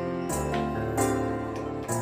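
Instrumental background music: sustained chords over a low bass, the notes changing shortly after the start and again about a second in.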